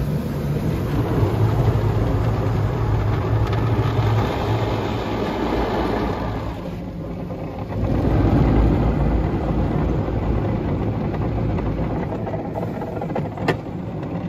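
Rotating cloth brushes of a Mark VII soft-touch car wash scrubbing over the car's glass with water, heard from inside the car: a steady dense rush over a low hum. It eases around seven seconds in and swells again a second later, with two sharp clicks near the end.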